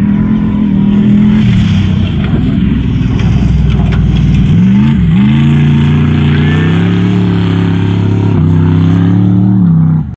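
Off-road race vehicle's engine running hard at high revs as it drives past. Its pitch dips sharply about halfway, then climbs again and holds. The sound cuts off suddenly near the end.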